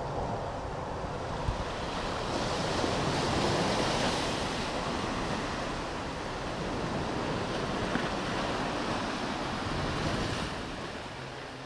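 Sea waves washing onto a beach, with wind blowing across the microphone; the surf swells twice and eases off near the end.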